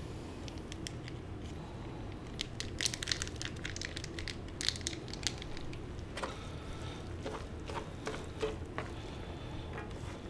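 Crinkling of a plastic seasoning packet as it is shaken over instant spicy ramen noodles, a dense run of sharp crackles. From about six seconds in, wooden chopsticks stir the noodles in a plastic tray, with scattered clicks and scrapes.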